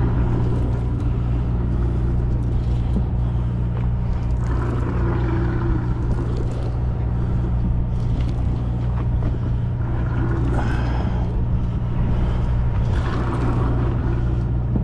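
Sportfishing boat's engine running steadily with a low, even hum.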